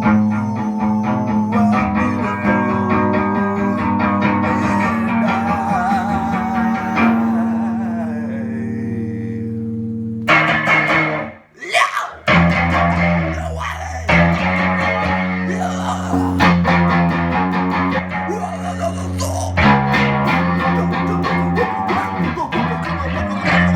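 Instrumental music between sung lines, guitar over a steady bass line. It cuts out sharply for about a second near the middle, then comes back in.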